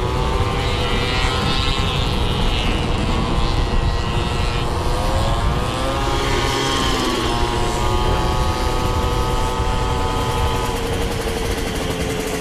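Several small two-stroke moped engines running together at varying revs, their pitches rising and falling against one another over a low rumble.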